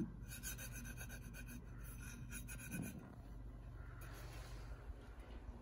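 Fingertips and nails rubbing and scratching over the grainy powder-coated surface of a stainless steel water bottle: faint dry scraping, with quick repeated strokes in the first couple of seconds.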